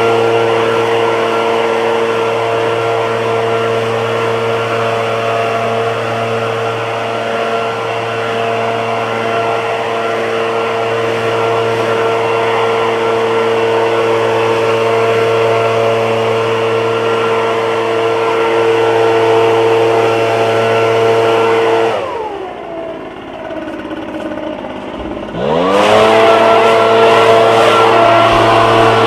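Echo PB-770T backpack leaf blower's two-stroke engine running steadily at high speed. About 22 s in, the throttle is let off and the engine falls to idle for about three seconds, then revs back up to full speed.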